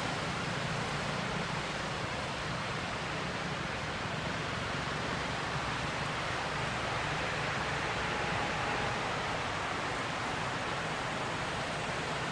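Steady, even hiss of outdoor ambient noise with no distinct events, like rushing wind or water.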